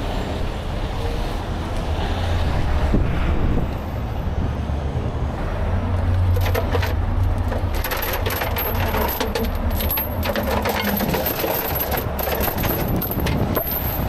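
Steel rigging chains clinking and rattling against one another as they are pulled from a tow truck's chain rack. The clinking sets in about six seconds in, over a steady low engine rumble.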